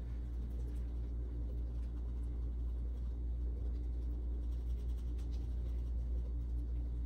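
A steady low hum with a few faint, light ticks.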